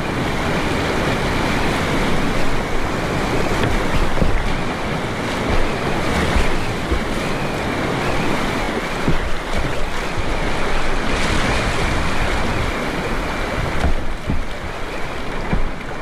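Steady rushing of whitewater rapids, with wind buffeting the microphone in low, uneven rumbles.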